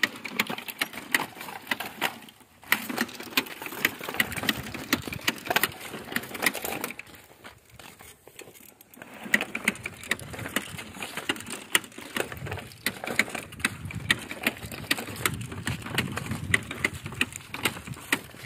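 Hand-pushed seed planter rolling over rough, clumpy soil: its seed-metering mechanism clicking rapidly while the wheels crunch over clods, stopping briefly twice.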